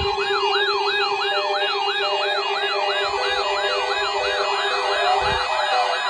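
Alert alarms of several weather/EAS alert radios sounding together for a required weekly test. A siren-like tone sweeps up and down about three times a second over a steady low beep, which stops near the end, and a second sweeping alarm overlaps it near the end.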